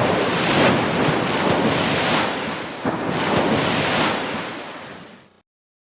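Ocean surf washing in and out in repeated swells, with wind buffeting the microphone. It fades over the last second or so, then cuts off suddenly to silence.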